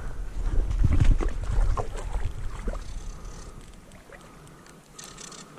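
Low rumble of wind and handling noise on a body-worn camera's microphone, with a few faint splashes of river water; the rumble fades out after about three and a half seconds, leaving a quiet background.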